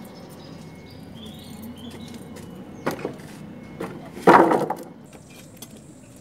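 Wooden planks knocking and clattering as they are set down onto a stack of lumber on concrete: a sharp knock about three seconds in, then a louder, brief clatter just after four seconds.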